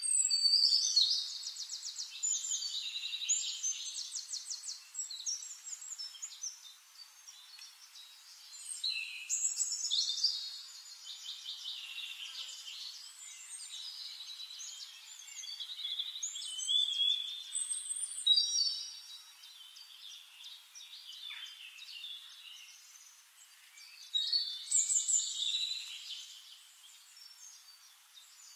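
Songbirds singing: high, fast trills and whistled warbling phrases that come in bursts every several seconds, loudest near the start.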